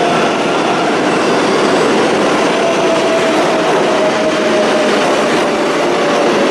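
New York City subway train running through the station: a loud, steady rumble of wheels on rail with a whine that slowly drops in pitch as the train slows.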